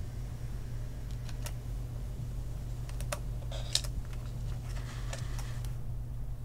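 Photographic slide mounts clicking against each other as a hand sorts through a wooden box of slides: a few light clicks about a second in, then a busier clatter of clicks in the middle. A steady low hum runs underneath.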